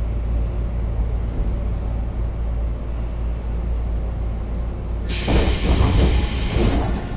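Steady low rumble of a Tobu 9000 series electric train car running. For about a second and a half near the end it is overtopped by a loud hiss of released compressed air, typical of the air brakes.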